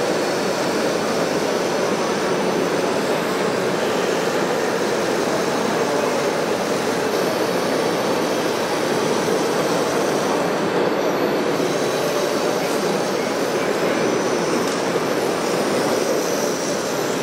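Radio-controlled model trucks and tractors driving: a steady whirring rumble of small motors and gearboxes.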